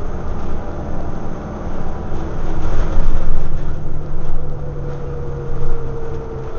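Scania OmniDekka double-decker bus's diesel engine and drivetrain running under way, heard from inside the passenger saloon: a steady low drone with road noise, getting louder for a stretch around the middle, and a thin transmission whine that slowly falls in pitch in the second half.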